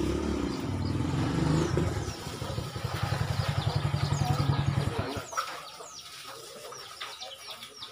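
Motorcycle engine running with a fast pulsing beat, stopping abruptly about five seconds in.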